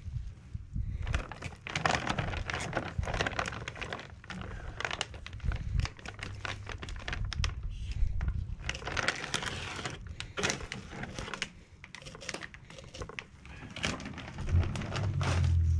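A dull fillet knife cutting along an opaleye's back on a wooden board, crackling and scraping in irregular strokes through skin and along the bones. A low rumble grows louder near the end.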